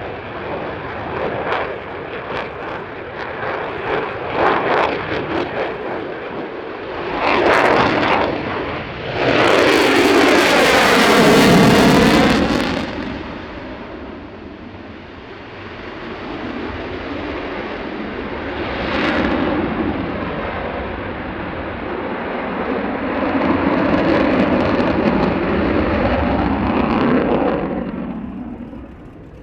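Lockheed Martin F-35A Lightning II's single F135 afterburning turbofan during a display pass. Crackling jet noise builds to a loud pass about ten seconds in, with a sweeping, phasing tone as the jet goes by. It then settles to a duller rumble that swells twice more before fading near the end.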